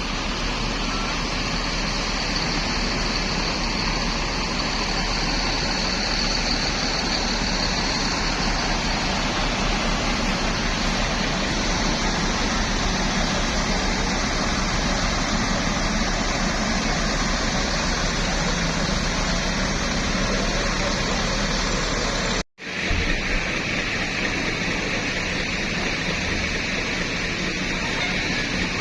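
Steady road traffic noise, a broad rushing roar of passing vehicles, cut off for an instant about three-quarters of the way through and then carrying on.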